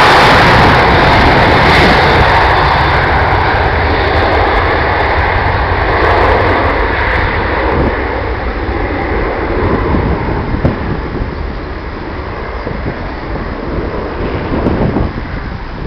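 Boeing 737-800's CFM56-7B jet engines running at takeoff thrust during the takeoff roll: a loud rushing jet noise that fades steadily as the plane moves away down the runway.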